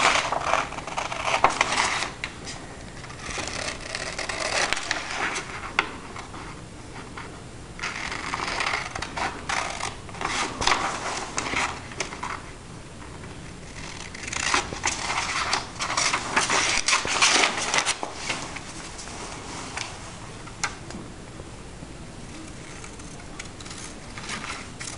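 Scissors cutting through a sheet of printer paper, snipping in runs with the paper crackling as it is turned, and quieter pauses between the runs.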